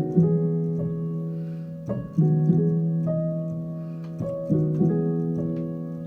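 Piano playing sustained chords, a new chord struck about every two seconds, each with a quick lead-in note or two just before it.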